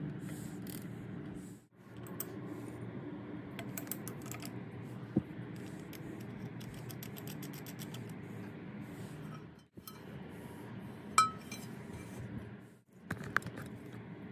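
Small steel parts of a jigsaw's drive mechanism clicking and clinking as they are fitted by hand. There are runs of quick ratcheting clicks from a ratchet wrench and one sharp metallic clink about eleven seconds in. A low hum runs underneath and drops out briefly three times.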